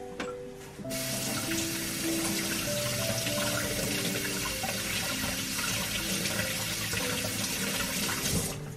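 Kitchen faucet running steadily while bell peppers are washed and scrubbed under the stream. The water comes on about a second in and shuts off near the end, with background music underneath.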